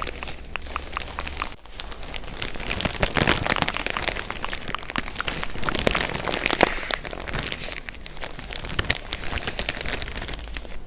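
Packaging crinkling and crackling as it is handled and unwrapped up close, with dense irregular crackles throughout and a brief lull under two seconds in.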